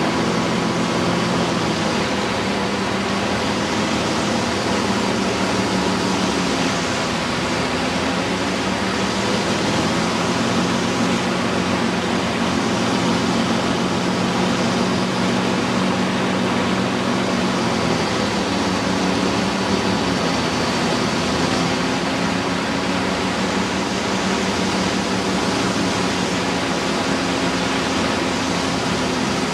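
Light aircraft in flight: a steady engine drone under loud wind rush. The engine note shifts slightly in pitch a few times.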